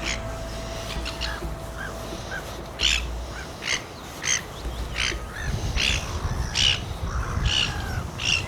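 A bird calling over and over with short, harsh, high calls, one about every second from about three seconds in, with a few fainter calls before.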